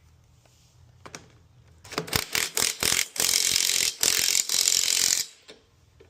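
Socket ratchet clicking as the flywheel nut is run down: a few single clicks, then rapid ratcheting from about two seconds in that runs together into a continuous rattle and stops about five seconds in.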